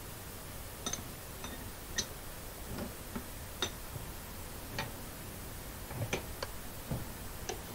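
Faint light clicks and taps at irregular intervals, about a dozen in all, as a cloth-wrapped dagger is handled and set in a bench vice.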